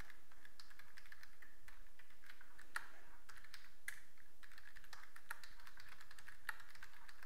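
Typing on a computer keyboard: a run of irregular key clicks, a few of them louder than the rest.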